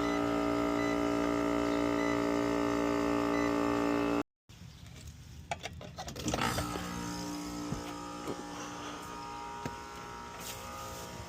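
Steady electrical hum of a powered-up air-conditioner condensing unit whose condenser fan motor has 120 V at its terminals but does not turn. The hum stops abruptly about four seconds in, then returns quieter with a few light clicks.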